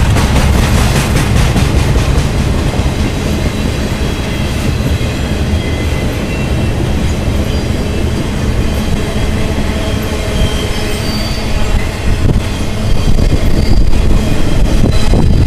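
Freight cars rolling past close by: an intermodal train's trailer-carrying cars rumbling and clattering over the rails, with faint, intermittent high wheel squeal. A loaded coal train is crossing on the bridge overhead at the same time. The rumble grows louder about two-thirds of the way through.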